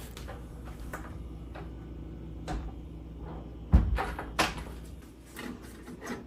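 A door being shut with a sharp thump about four seconds in, amid scattered handling clicks and knocks over a steady low hum.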